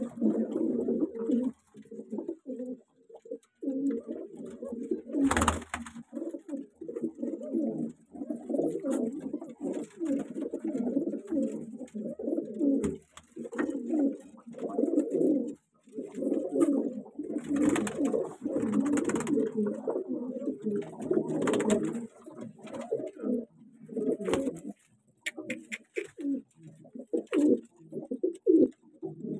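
Fighter pigeons in a loft cooing almost without pause, several birds overlapping in low, repeated coos. There are a few brief rustling noises about 5 s in and again around 18 and 21 s.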